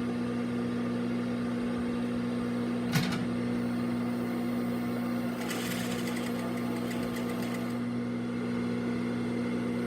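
Juki industrial sewing machine: its motor hums steadily, with a sharp click about three seconds in, then the needle stitches in a rapid run for about two seconds past the middle. The treadle is held back by half a door spring, so the stitching speed stays under control.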